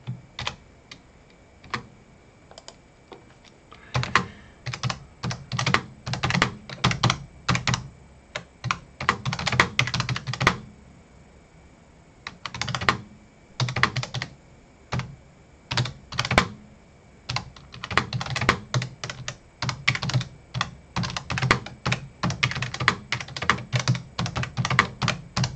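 Typing on a computer keyboard: runs of rapid key clicks broken by short pauses, with only a few scattered keystrokes for the first few seconds.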